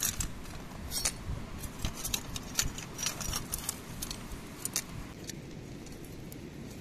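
A small metal shovel and scraper raking and scooping charcoal embers and small stones in a stone fire pit, a quick run of scrapes and light metallic clinks. The clinking stops about five seconds in, leaving only a low background noise.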